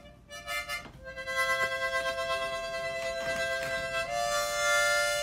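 Harmonica played in long held chords: a few short notes at first, then a sustained chord from about a second in that shifts to a new chord about four seconds in and fades near the end.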